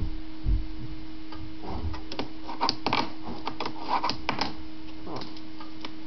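Light, irregular clicks and taps from handling a small wooden fingerboard deck, over a steady hum.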